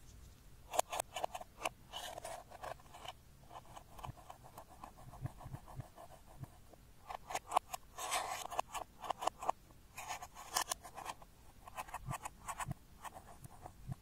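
Thin metal tool scraping and digging pressed eyeshadow out of a palette pan, crumbling the powder: runs of quick scratchy strokes in several bursts.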